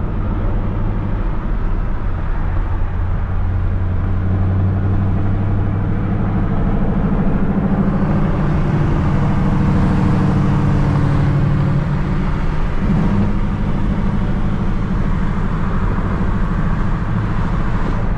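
Steady engine drone and road noise heard from inside a moving car, the engine note moving up a little about halfway through.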